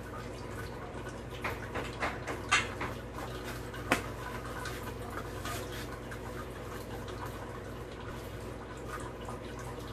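Steady low hum, with a few short clicks and scrapes about one and a half to two and a half seconds in and a single sharp click about four seconds in.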